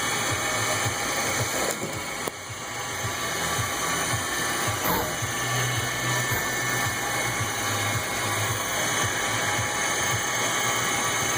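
A metalworking machine tool running steadily while machining a part.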